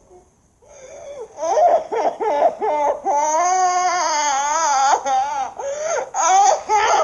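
Cartoon crying sound effect: a high voice breaking into short choppy sobs, then a long wavering wail about three seconds in, then more sobbing.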